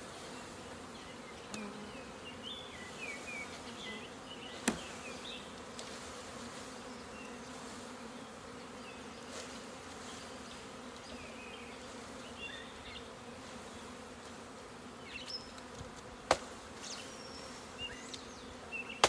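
A mass of honey bees buzzing in a steady hum as a package of bees is shaken out into a hive. Two sharp knocks, about five and sixteen seconds in, as the wooden package box is knocked to shake the bees loose.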